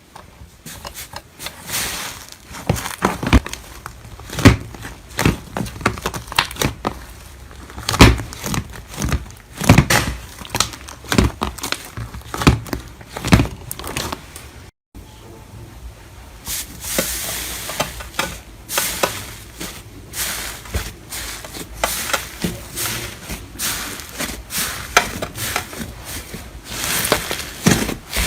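Slime being squeezed, stretched and poked by hand: irregular crackles, clicks and pops, with a short break about 15 seconds in before more of the same.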